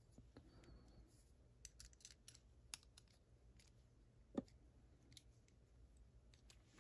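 Faint, scattered small clicks and scratches of a tool working at the retaining clips on a Mul-T-Lock 7x7 lock cylinder, with one louder click about four and a half seconds in.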